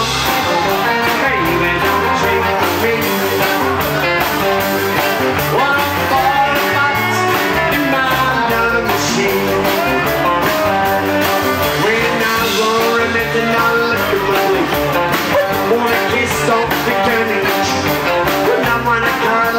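Rockabilly band playing live: saxophone, upright double bass, electric guitar and drums.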